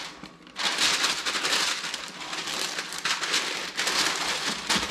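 Parchment paper crinkling and crackling as it is folded and pressed tightly around a brisket, starting after a brief lull about half a second in.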